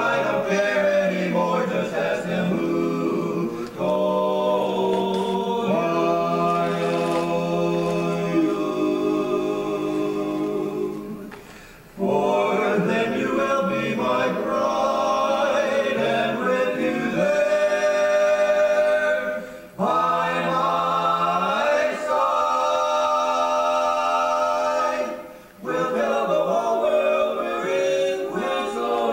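Male barbershop quartet singing a cappella: four voices in close harmony, holding sustained chords. The phrases are broken by brief pauses about 12, 20 and 25 seconds in.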